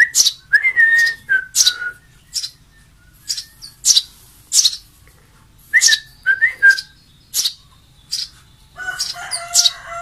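Eurasian tree sparrow fledglings begging while being hand-fed: sharp, high chirps repeated in quick clusters, with short lower whistle-like notes between them. Near the end a longer, steady call with several tones joins in.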